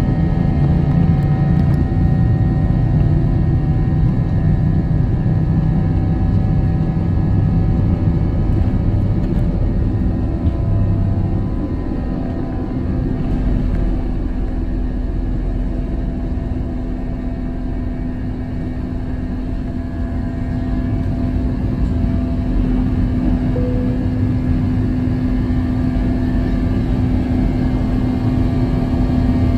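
Airbus A321's IAE V2500 turbofan engines at takeoff thrust, heard from inside the cabin, with the low rumble of the takeoff roll. About a third of the way in the rumble fades, and a steady engine drone with a held hum carries on into the climb.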